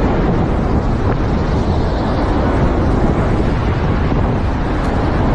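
Loud, steady rushing noise, heaviest at the low end, typical of strong wind buffeting the microphone.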